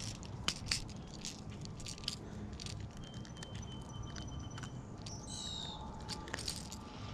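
Light clicks and ticks of a red hard-bodied fishing lure's treble hooks as they are worked free of a bass's mouth, with a few faint high bird-like whistles in the middle.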